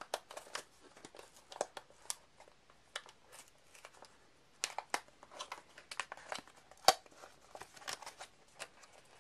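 Taped cardboard retail box being opened by hand: irregular crinkling, tearing and clicking of cardboard and tape, the loudest a sharp click about seven seconds in.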